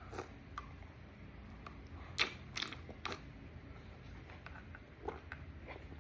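A child chewing and biting food: scattered soft crunching and mouth clicks, a few louder ones two to three seconds in and again near the end.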